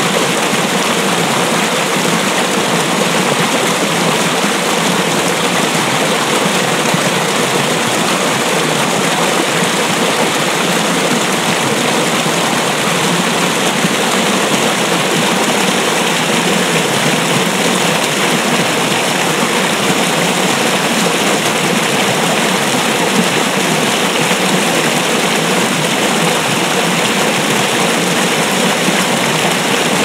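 Small snowmelt stream rushing steadily over a short drop, the water churning and splashing into white water.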